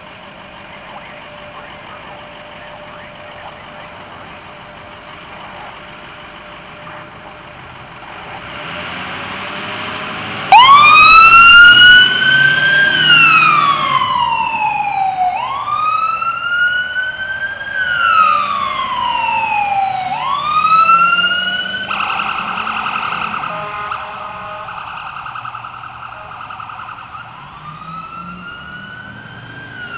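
Ambulance's Whelen 295HFS2 electronic siren cutting in suddenly and loud about a third of the way in, sounding a wail: slow sweeps rising and falling about every five seconds. Before it the truck's engine runs steadily and swells. Midway a brief steady, buzzing siren tone breaks the wail, which then comes back fainter as the ambulance drives away.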